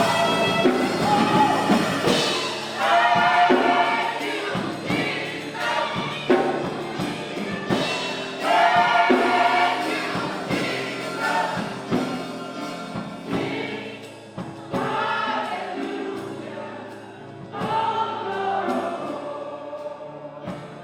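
Gospel choir singing in phrases a second or two long with short breaks, over steady low sustained accompaniment notes.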